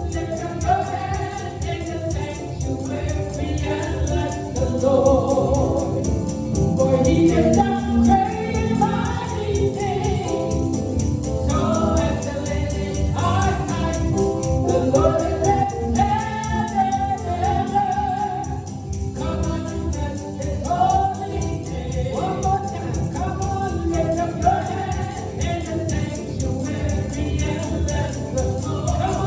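Gospel music: a choir singing over a band with a steady beat.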